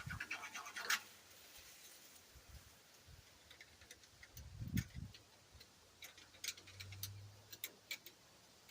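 Hand tools at work on an old backhoe: a quick, even run of clicks in the first second, then scattered light clicks and a dull knock about five seconds in.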